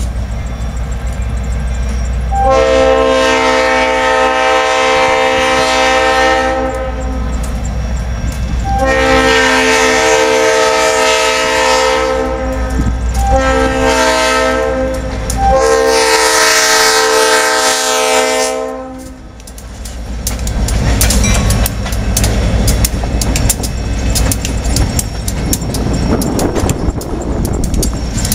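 Diesel locomotive's multi-note air horn sounding the grade-crossing signal: two long blasts, a short one, then a final long one. After the horn stops, the passing locomotives' engines run low and steady under a dense clicking of wheels on the rails.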